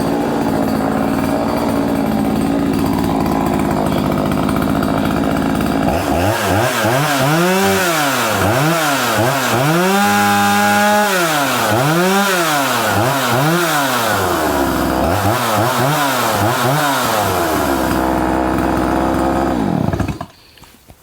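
Craftsman 2.8 (Poulan 2800) 46cc two-stroke chainsaw idling steadily, then revved up and down about eight times with one longer hold at high revs, before dropping back to idle and cutting off near the end. It is running properly after a new tank vent and impulse hose were fitted.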